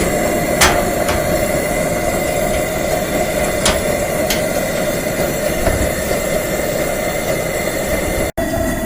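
Coleman 424 dual-fuel stove's pressurised liquid-fuel burners, both lit, burning with a steady roar. A few faint sharp ticks come through, about half a second in and around four seconds in.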